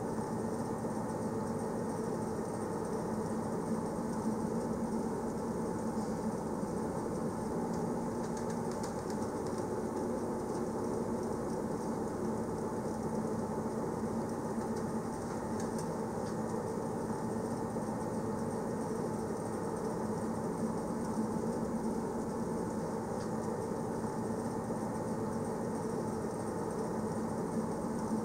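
Train running steadily along the track: a continuous, even rumble with a held hum underneath.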